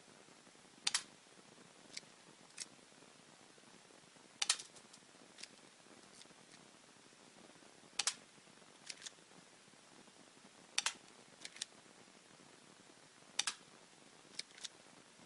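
Airsoft Glock 17 pistol firing single shots: five sharp snaps a few seconds apart, each with fainter clicks following it.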